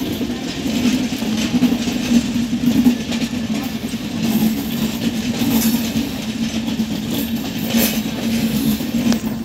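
Passenger train of red coaches running past on the track: a steady rumble of wheels on rail with occasional clacks as the wheels cross rail joints, one sharper clack near the end.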